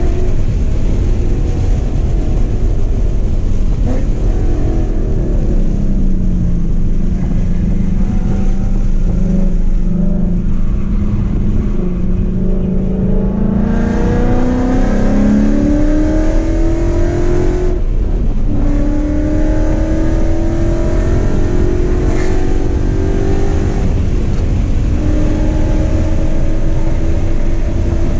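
2015 Mustang GT's 5.0 V8, fitted with long-tube headers, X-pipe and Borla ATAK mufflers, heard from inside the cabin at speed: the engine note falls as the car slows, holds low for several seconds, then climbs hard under full acceleration. The climb breaks sharply about two-thirds in and again near the end, as the manual gearbox is upshifted.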